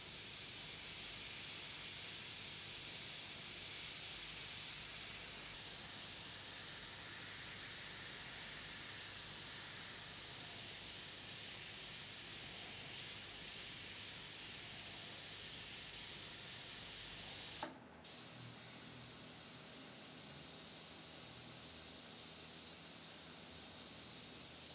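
Richpen 213 airbrush with a 0.3 mm nozzle spraying paint: a steady hiss of compressed air. It breaks off for a moment about 18 seconds in, then carries on slightly quieter.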